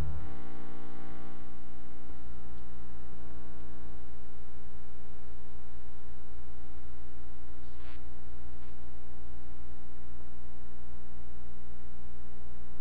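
Steady electrical mains hum, one low buzzing tone with a stack of even overtones, holding at a constant level. A faint click sounds about eight seconds in.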